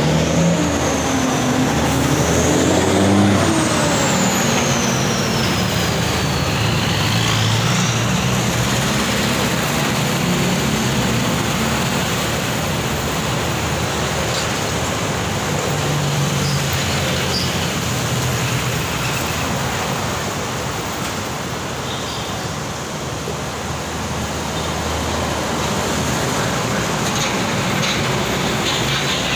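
Steady street traffic: cars, pickups, motorcycles and heavy trucks passing, with the low drone of truck engines rising and fading as they go by. A high whine slides down in pitch a few seconds in.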